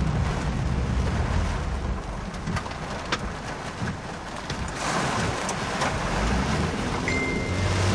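Heavy rain and wind on a moving car, heard from inside the cabin over the low drone of the engine and tyres on the wet road, with the rain noise swelling about five seconds in. A short, steady high beep sounds near the end.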